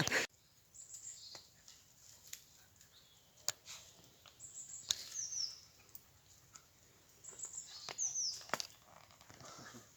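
Faint birdsong: short high chirps with quick falling notes, in two bursts about five and eight seconds in, with a few soft clicks between.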